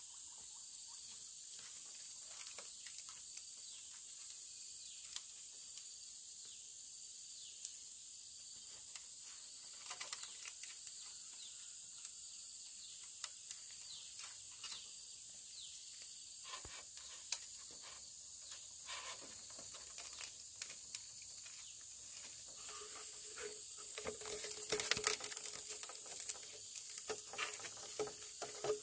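Insects chirring steadily in a high, even drone, with scattered light clicks and rustles that grow louder and busier in the last few seconds.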